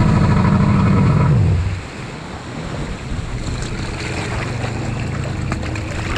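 Stand-up jet ski engine running at low speed with water churning around the hull; its note falls and drops off about one and a half seconds in, leaving a quieter low idle with water sloshing and wind on the microphone.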